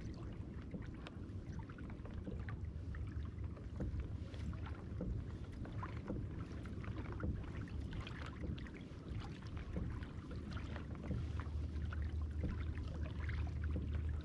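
Water trickling and lapping against a kayak's hull as it moves over calm water, with many small splashy ticks over a steady low rumble that grows louder near the end.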